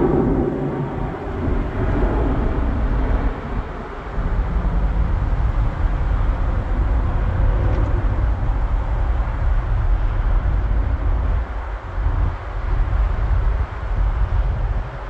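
Jet airliner's engines heard from a distance during the takeoff roll, a steady low rumble that swells and dips a little.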